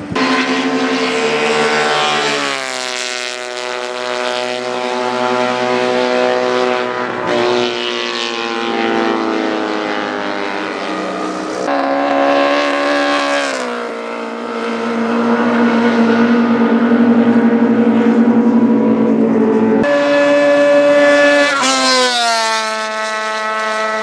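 Classic racing sidecar outfits going by at full speed, their engines screaming, each engine's pitch dropping sharply as it passes; several pass-bys follow one another.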